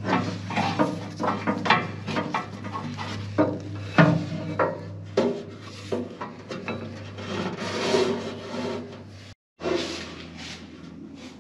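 A cogged rubber V-belt being worked by hand onto a motor pulley inside a jointer's sheet-metal base: rubbing and scraping, with many irregular knocks and clicks as the belt and hands bump the pulley and cabinet. The sound is quieter after a short break near the end.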